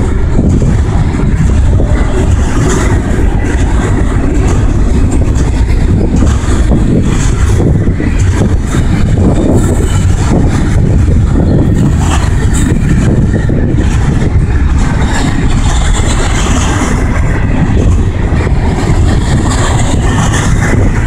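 Double-stack intermodal container train rolling past on well cars: a loud, steady rumble of steel wheels on the rails.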